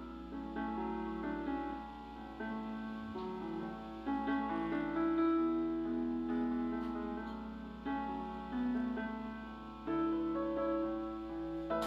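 Background piano music with slow, held notes.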